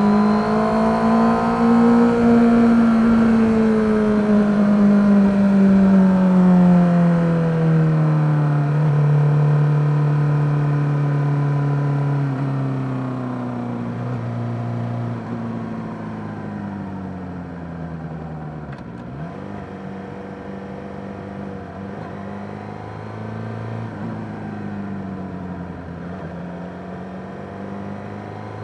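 Suzuki GSX-R600 inline-four engine running on the move. Its pitch rises briefly, then falls steadily over about ten seconds as the revs drop. It then runs lower and quieter, with a short dip about two-thirds of the way through and a slight climb near the end.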